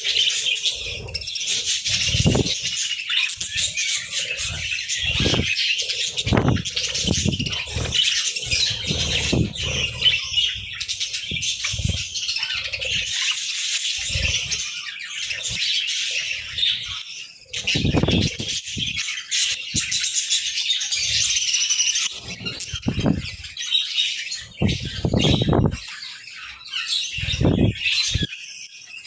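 A group of budgerigars chirping and warbling continuously, with frequent short wing flutters underneath.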